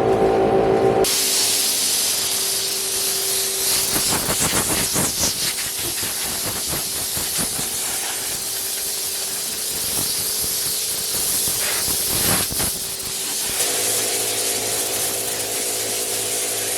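A loud, steady hiss of a pressurised jet, like compressed air or spray, starting about a second in and cutting off a few seconds before the end.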